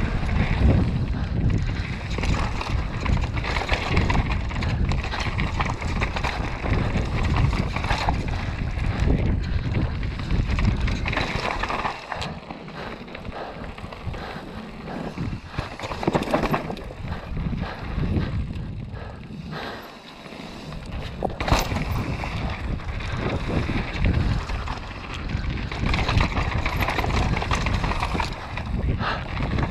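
Downhill mountain bike ridden fast on a loose dirt trail: wind rushing over the microphone, tyres crunching over dirt, and the bike clattering and knocking over bumps. It eases briefly about twelve seconds in and again about twenty seconds in.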